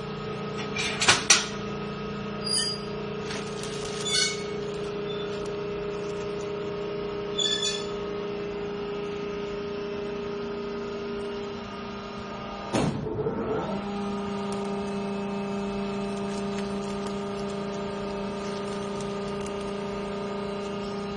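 Hydraulic clothing-bale press running, its pump motor giving a steady hum. A few short clicks and plastic-wrap rustles come in the first several seconds, and a brief downward-sliding sound about 13 seconds in, after which the hum carries on.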